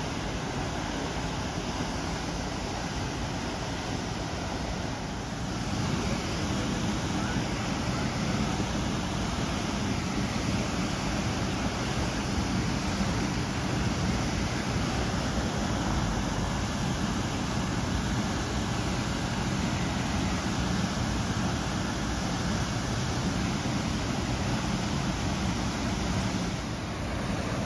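Water gushing uncontrolled from a fire hydrant sheared off by a vehicle, a tall column of spray raining down in a steady rush, with its valve not yet shut off.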